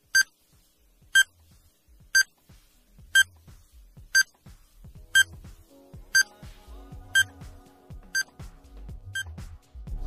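Countdown timer sound effect: short electronic beeps, one each second, ten in all. Quiet background music underneath fills out with sustained tones about halfway through.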